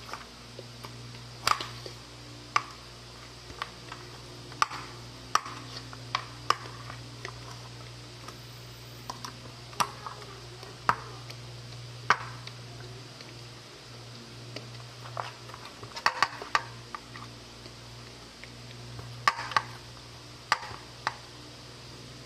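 Hands kneading pieces of pork in marinade in a metal pan: squishing, with scattered sharp clicks and knocks against the pan, over a steady low hum.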